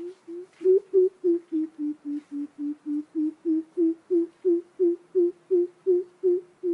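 Greater coucal (bìm bịp) calling: a long run of deep, even hoots, about three a second, dipping slightly in pitch after the first second and rising again, the first couple softer.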